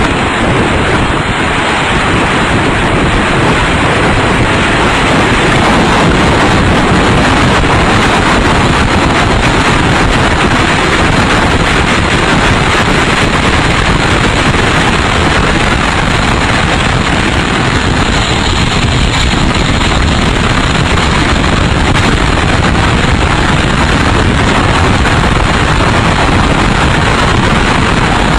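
F3 tornado winds blowing over a ground-level probe and its microphone: a loud, unbroken rush of wind noise that does not let up.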